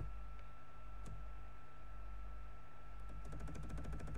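Computer keyboard keys clicking: one click at the start and another about a second in, then a quick run of about ten key presses a second over the last second or so. A steady faint electrical hum runs underneath.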